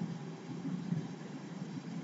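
Faint low background rumble with no speech: steady room noise.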